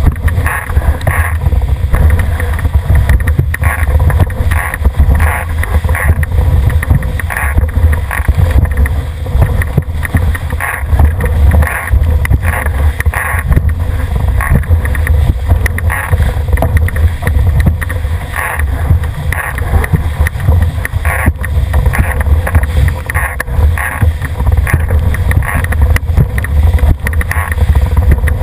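Strong wind buffeting the boat-mounted camera's microphone as a loud, steady low rumble. Over it, water rushes and splashes against the hull of a Cherub dinghy sailing fast downwind under spinnaker.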